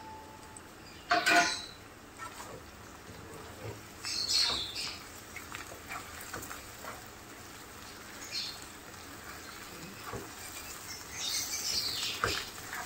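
A spatula scraping and stirring raw minced beef and onions in a nonstick frying pan, breaking up the mince to brown it. A sharp clatter about a second in, then scattered scraping strokes, with a longer run of scraping near the end.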